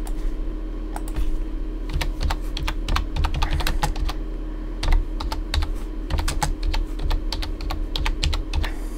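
Typing on a computer keyboard: a run of irregular keystrokes starting about two seconds in, over a steady low electrical hum.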